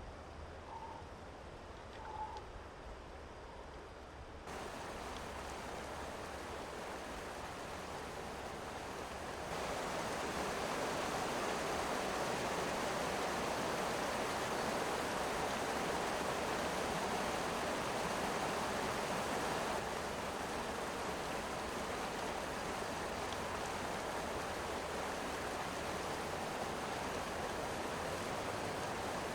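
Mountain river rushing steadily. It grows louder in two sudden steps, about four and nine seconds in, and eases slightly around twenty seconds. Two faint short chirps come near the start.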